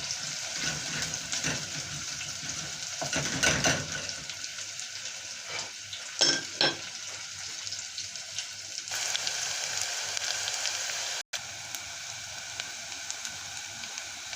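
Onions and garlic sautéing in hot oil in a pot, sizzling steadily. A spoon scrapes and knocks against the pot a few times in the first half.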